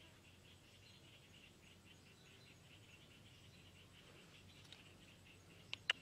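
Faint insect chirping, a quiet steady pulsing of several chirps a second, crickets in the background. Near the end come two sharp clicks, the second louder, as bamboo sticks are handled.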